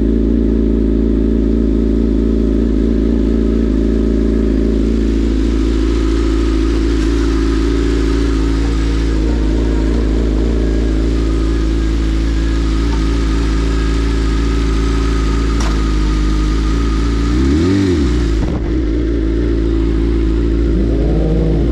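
Sportbike engine idling steadily, then one rise and fall in revs about three-quarters of the way through as the bike pulls away, with the revs climbing again near the end.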